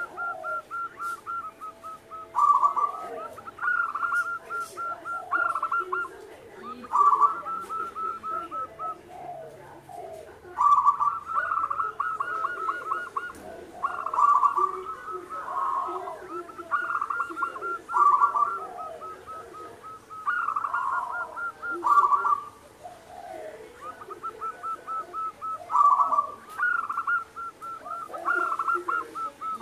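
Zebra dove (perkutut) singing its cooing song: phrases of rapid staccato coos, repeated about every two seconds.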